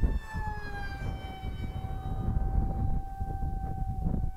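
Electric ducted-fan whine of a radio-controlled MiG-35B model jet in flight. The pitch drops about half a second in as the jet passes, then holds steady. Wind buffets the microphone throughout.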